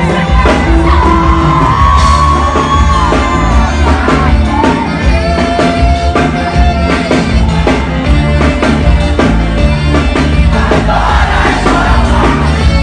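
Live band music with a steady beat and a singer holding long notes, with crowd shouts mixed in.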